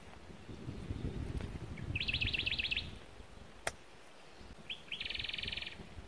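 A small songbird singing two short trilled phrases: first a run of about eight quick notes, then, after two lead-in notes, a faster, denser trill lasting about a second. A low rumble sits under the first half, and there is a single sharp click about halfway through.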